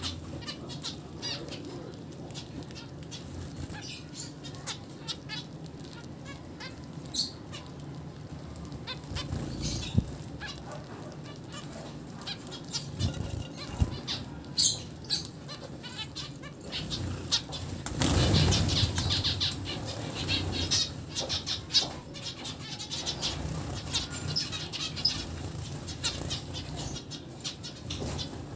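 A flock of zebra finches fluttering their wings as they jostle and take off, with short scattered calls. A louder flurry of wingbeats comes about two-thirds of the way in.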